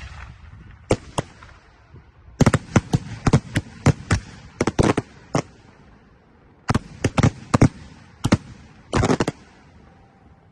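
Fireworks display firing in volleys: clusters of sharp bangs in quick succession, the densest run from about two and a half to five and a half seconds in and another tight cluster near nine seconds, each volley trailing off in echo.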